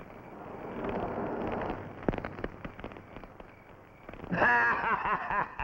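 Campfire crackling and flaring up as it is built up, a rushing hiss with many sharp pops and one loud crack about two seconds in. About four seconds in, a louder pitched sound takes over.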